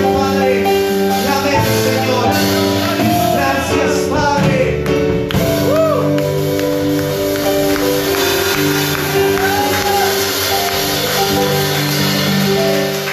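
Live worship band playing a slow song on keyboard, acoustic guitar and drum kit, with a woman singing over long held chords.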